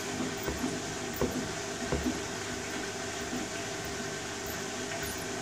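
Beko front-loading washing machine tumbling a wet load of sandals and dog toys: steady drum and motor hum with water sloshing, and a few soft knocks in the first two seconds as items drop inside the drum.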